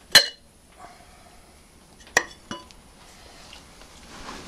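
Sharp metal clanks as the rocker cover of a Petter AVA1 engine is taken off and set down: a loud clank just after the start, then two lighter clinks about two seconds in.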